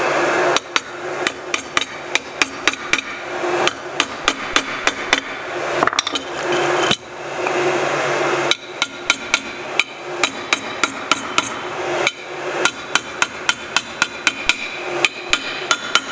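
Light hammer taps seating the pinion and input-shaft bearings into a Porsche 902 transmission's warmed intermediate plate: quick strikes, several a second, in bunches. Under them a hot air gun blows steadily, cutting out and coming back several times.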